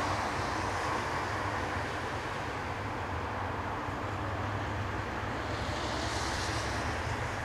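Steady city traffic noise: a low rumble under an even hiss, with a higher hiss swelling and fading about six seconds in.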